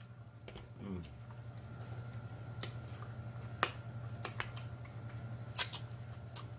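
Close-miked eating sounds of someone working through chicken wings: a few sharp wet mouth clicks and lip smacks, with a brief low murmur about a second in. A steady low hum runs underneath.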